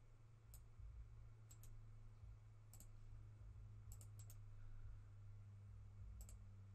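Faint computer mouse clicks, about ten spread through, several in quick pairs, over a low steady hum.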